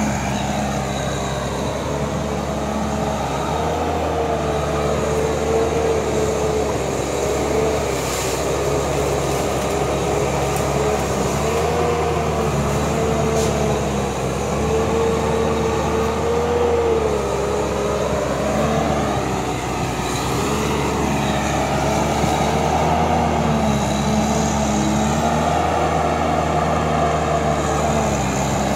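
Bulldozer's diesel engine running under load, its note rising and falling a little as it works.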